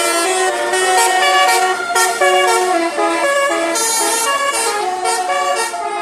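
Basuri musical vehicle horn playing a tune: several horn tones sounding together and stepping quickly from note to note, a few changes a second, without a break.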